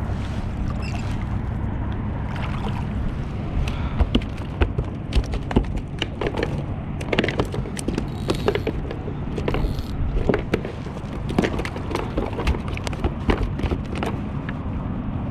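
Steady low wind rumble on the microphone, with a run of sharp clicks, taps and knocks from about four seconds in as a just-landed bluefish and the rod and tackle are handled on a plastic kayak.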